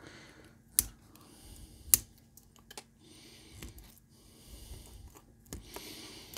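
Flush side cutters snipping off soldered component leads on a circuit board: several sharp clicks, the two loudest about one and two seconds in.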